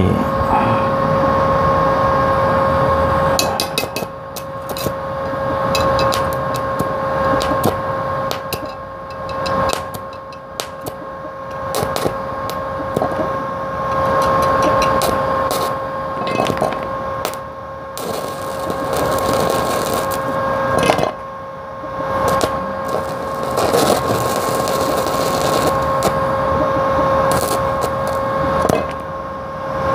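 Stick (MMA) welding arc from a Benz MMA 120 inverter welder set to about 80 amps, crackling and sputtering on steel and dropping out and restriking several times. A steady high whine runs underneath.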